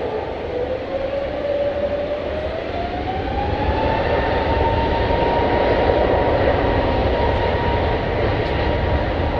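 Jet airliner's engines spooling up: a whine rising in pitch over the first four seconds and then holding steady, over a rumble that grows louder.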